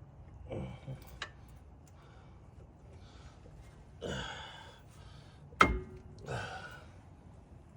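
Hand work on a vehicle's brakes: scraping and handling noises, then a sharp metallic clank with a brief ring about two-thirds of the way in, the loudest sound, followed by another rustling scrape.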